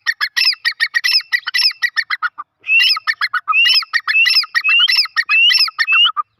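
Dakhni teetar, a grey francolin, calling loudly: a rapid string of sharp repeated notes, then after a short break about two and a half seconds in, a second run punctuated by rising whistled notes.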